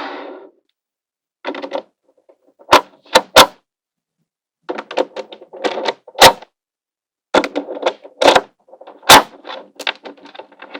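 Small magnetic balls snapping together with sharp clicks and rattling against one another, in separate bursts with silent gaps between; the loudest single snaps come about three, six and nine seconds in.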